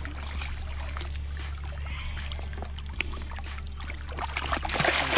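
Water trickling and lapping at a rocky bank over a steady low rumble. From about four seconds in, splashing grows louder as a hooked common carp thrashes in the shallows at the water's edge.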